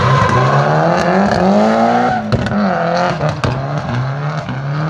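Drift car's engine revving hard through a corner, its pitch rising and falling with the throttle, dipping briefly about two seconds in and then climbing again, over a steady hiss.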